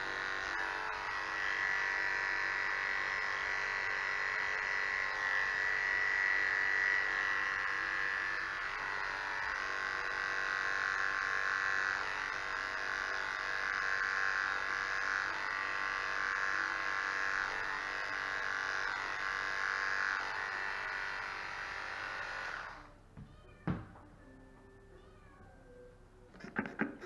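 Electric animal hair clippers running steadily as they shave a cat's belly fur before spay surgery. The buzz cuts off abruptly about 23 seconds in, followed by a few short knocks near the end.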